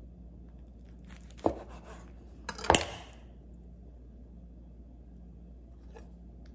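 Chef's knife knocking against a plastic cutting board while slicing tortilla pinwheels: two sharp knocks about a second apart, the second louder, with a few faint clicks around them.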